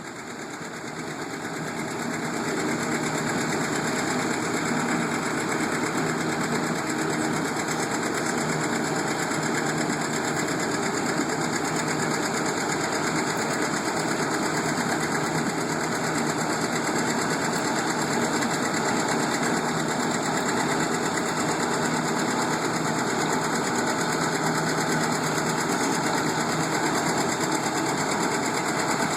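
Farm machinery engine running steadily after coming up to speed over the first two or three seconds, with a fast mechanical chatter.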